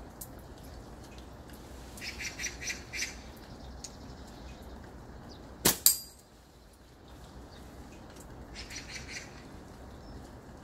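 A slingshot shot about halfway through: two sharp cracks a fraction of a second apart, the release and the ball striking the target. Birds chirp in two short bursts, before and after the shot, over the steady hiss of rain.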